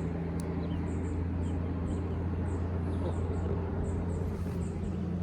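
Steady low hum of a running vehicle, with faint short high-pitched chirps repeating irregularly a few times a second.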